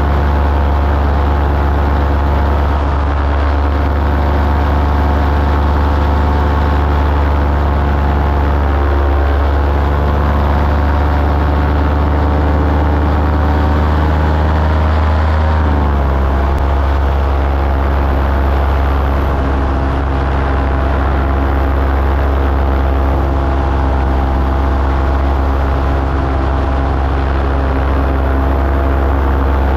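Engine of a small powered aircraft running steadily in flight. The engine speed drops slightly about halfway through, then holds.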